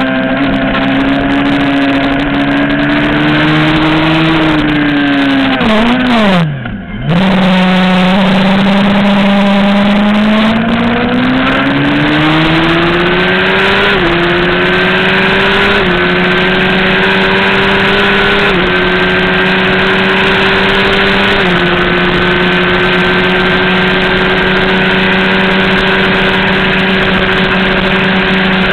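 Racing motorcycle engine heard from a camera mounted on the bike, with wind rush. The revs fall and waver briefly, with quick blips, as the bike slows for a turn, then climb steadily under full throttle and step down at each of four quick upshifts, ending in top gear at a high, steady pitch at speed.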